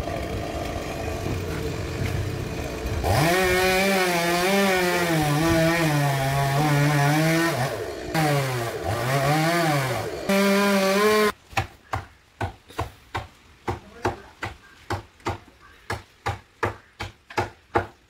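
Chainsaw cutting into a coconut palm trunk, its engine note wavering and dipping repeatedly under the load of the cut, then stopping suddenly about eleven seconds in. After that comes a steady run of sharp knocks, about two a second.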